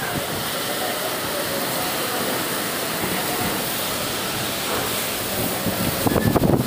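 Storm wind and rain making a steady rushing noise, briefly louder near the end.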